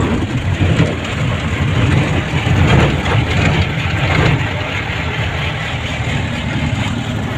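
Steady engine drone and road noise heard from inside a moving vehicle's cabin, with the side window open.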